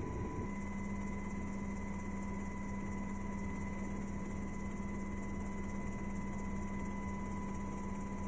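Steady cabin noise inside a military helicopter's cockpit in flight: a constant low hum with a fainter steady whine above it over a hiss. A brief low rushing noise gives way to it about half a second in.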